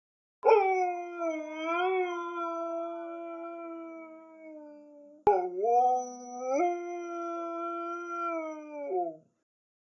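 Pit bull dog howling: two long, wavering howls, the second starting abruptly right after the first ends, stepping up in pitch and falling away at the end.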